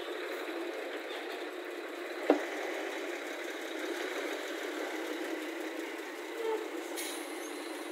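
A vehicle engine running steadily, with one sharp knock a little over two seconds in.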